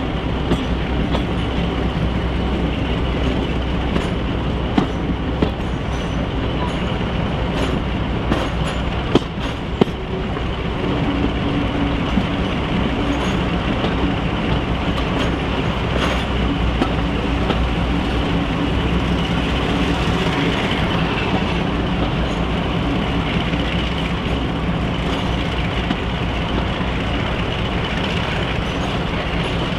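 Class 42 Warship diesel-hydraulic D821's twin Maybach V12 engines running steadily as the locomotive hauls the train, heard from an open coach window behind it, under the rumble of the coaches. Wheels click sharply over rail joints and pointwork now and then, most often a few seconds in and again about halfway through.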